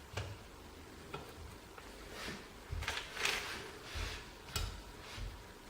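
Small metal clicks, scrapes and light knocks of hand work on a greased shaft in an apron casting, as a spring clip is fitted to retain the shaft. The loudest part is a short scraping rustle about three seconds in, followed by a few dull knocks.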